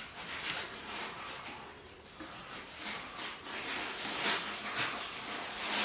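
Nylon 550 paracord rubbing and rustling as it is pulled under and across the paracord wraps of a paddle handle, in a few short scraping strokes.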